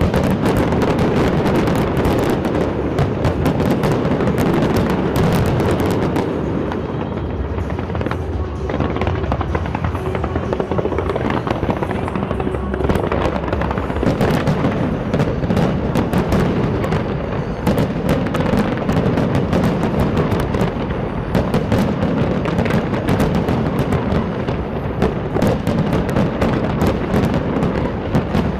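Large fireworks display going off continuously: dense rapid bangs and crackling over a deep rumble, with music playing underneath.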